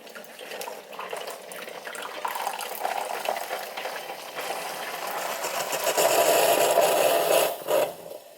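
Proctor Silex single-serve coffee maker brewing: hot water running through the brew basket and coffee pouring into the cup. The sound grows louder, is loudest in the last couple of seconds, then drops off sharply near the end.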